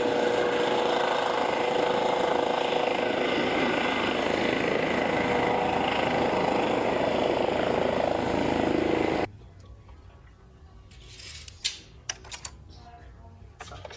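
Helicopter running with a steady, even noise that cuts off suddenly about nine seconds in. After that it is much quieter, with a few faint clicks.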